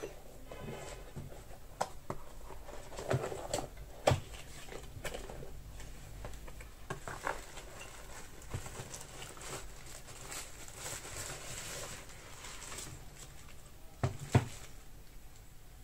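Hands handling packaging and small accessories: scattered light taps and clicks with a stretch of soft rustling in the middle, and two sharper knocks near the end.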